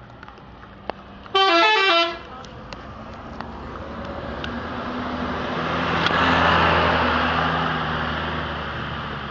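A bus's 'telolet' musical horn plays a short tune of quickly changing notes, loud and over in under a second. Then a large vehicle passes close by, its engine and road noise swelling to a peak a few seconds later and fading away.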